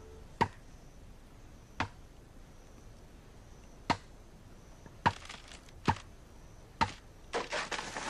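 A giant bamboo stem being chopped by hand: six sharp, single blows spaced a second or two apart, then a quick run of lighter knocks near the end.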